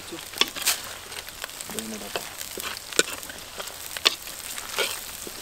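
Sliced green chillies frying in hot coconut oil in a clay pot, sizzling steadily as a steel ladle stirs them, with a few sharp clicks scattered through.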